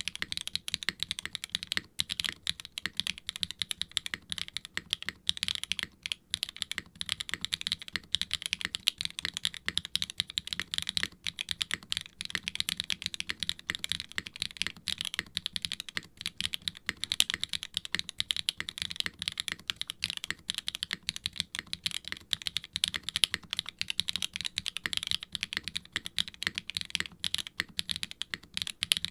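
Fast, continuous typing on a mechanical keyboard with Swagkeys Ghost Dragon linear switches (POK top housing, nylon bottom, POM stem, 62 g spring) in a silicone HIBI June case on an FR4 plate, with a bright, crisp clack on each bottom-out.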